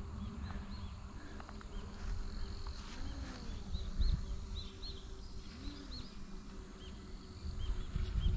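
Outdoor hillside ambience: wind rumbling on the microphone, with many short, high chirps scattered irregularly throughout.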